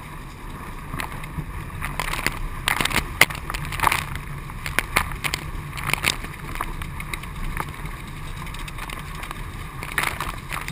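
Water rushing and sloshing around surf skis running on a wave, with a steady low rush throughout. Paddle blades strike and splash the water in sharp bursts from about two seconds in to about six seconds, and again near the end.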